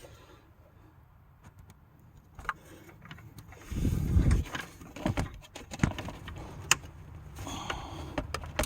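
Metal clinks and knocks of a socket wrench and ratchet working on the alternator's power-wire nut, with a heavy low thump about four seconds in. This is the effort to break the 12 mm nut loose.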